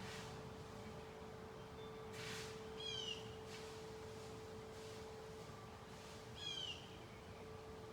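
A bird gives a short, falling chirp twice, about three seconds in and again near the end, over a steady hum and a few brief gusts of wind.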